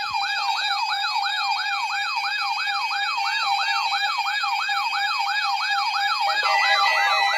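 Weather alert radio alarm going off for a required weekly test: an electronic siren sweeping up and down about three times a second over a steady tone. Around six seconds in, a second warbling alarm joins and the sound thickens.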